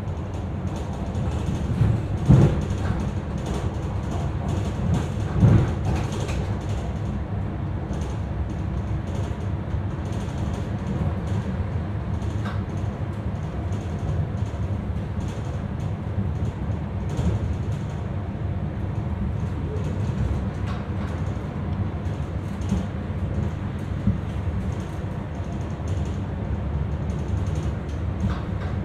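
Commuter train running along the track: a steady low rumble with scattered creaks and knocks, and two louder thumps about two and five and a half seconds in.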